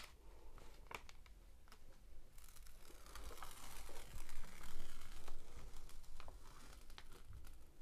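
Release paper being peeled off the sticky glue layer of a diamond painting canvas: a steady papery tearing rustle that starts about two and a half seconds in and fades out a few seconds later, with small handling clicks of the paper around it.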